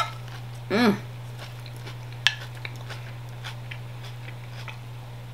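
Eating salad: a short hummed "mm" about a second in, then scattered light clicks of a fork and spoon against a plate and of chewing, over a steady low hum.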